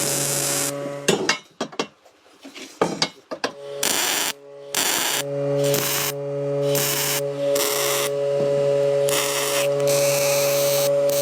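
A power tool running with a steady hum and a rushing, grinding noise on top. It stops about a second in, starts again in short bursts, and then runs steadily.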